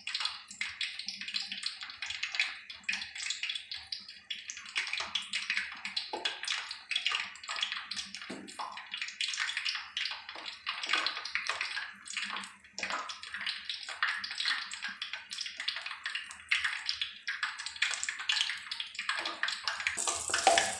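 Mustard oil boiling in an aluminium kadhai with whole onion, garlic and ginger frying in it: a steady, dense crackling sizzle as the oil is cooked out.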